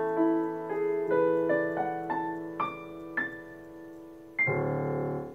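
Keyboard piano playing slow single notes that climb in pitch over a fading held chord, then a final chord about four seconds in that stops suddenly.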